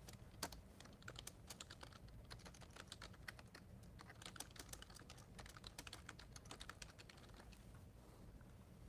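Faint typing on a computer keyboard: quick, irregular key clicks that thin out near the end.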